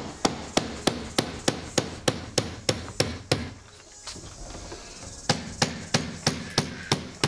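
Hammer striking in quick, evenly spaced blows, about three a second: a run of a dozen or so, a pause of about two seconds, then another run.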